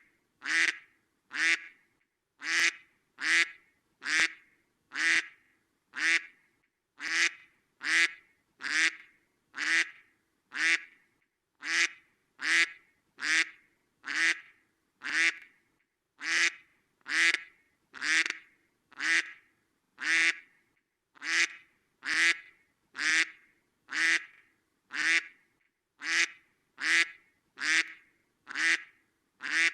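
Duck quacking over and over at an even pace, about one and a half quacks a second, each quack alike.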